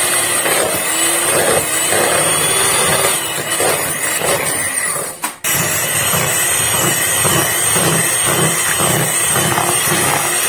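Electric hand mixer running steadily, its beaters whipping cream in a plastic bowl. The sound breaks off for a moment about five seconds in, then the mixer runs on.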